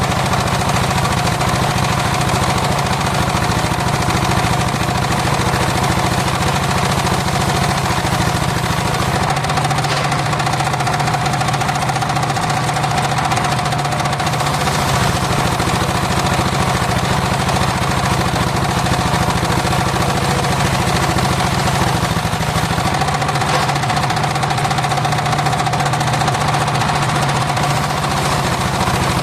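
Engine of a homemade circular saw rig running steadily, with a constant higher whine over the engine note.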